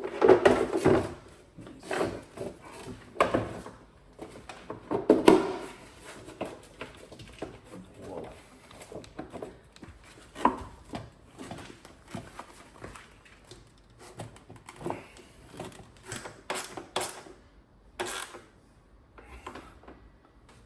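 An air filter box being worked into place in a car's engine bay: irregular hollow knocks, clunks and rubbing of the parts against each other, heaviest in the first few seconds, with one sharp knock about halfway and lighter clicks and scrapes after.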